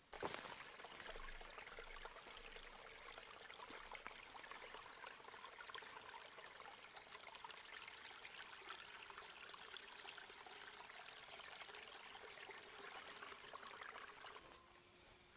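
Small shallow creek trickling over stones and leaves, with water gurgling into a bottle as it is dipped in and filled. The steady trickle starts suddenly and cuts off near the end.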